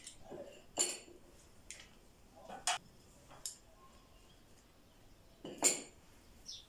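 Hand-held metal lemon squeezer clicking and clinking as lemon halves are pressed, about six separate sharp metallic clicks, the loudest near the end.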